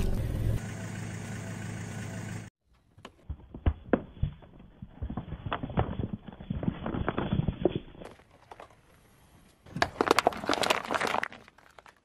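Car tyre rolling over paper cups and crushing them: a run of crisp crinkling crackles from about three seconds in, then a second dense burst of crunching near the end. A steady noise fills the first couple of seconds before the crackling starts.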